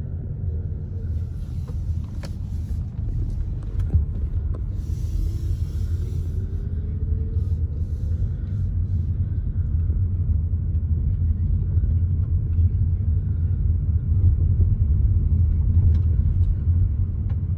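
A car driving: steady low rumble of engine and road noise, growing a little louder over the second half.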